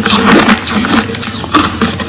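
Crushed ice being chewed: a rapid, uneven run of crisp crunches, about three or four a second.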